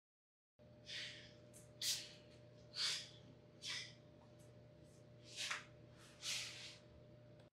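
A man's short, sharp gasping breaths, about six of them roughly a second apart, over a faint steady hum.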